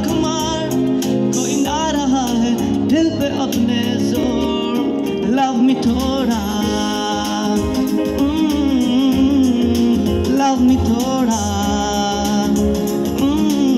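A man singing a slow, ornamented melody with gliding, bending notes into a microphone, over sustained chords and a low bass played on a Korg Pa-series arranger keyboard.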